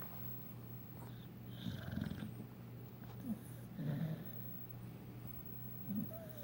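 Dog snoring softly in its sleep: faint snores about every two seconds.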